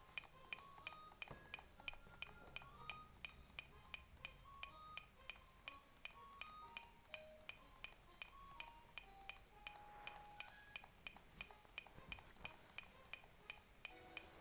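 Honda car's hazard-light flasher ticking faintly and evenly, about two to three ticks a second, with a faint melody of short chime-like notes underneath.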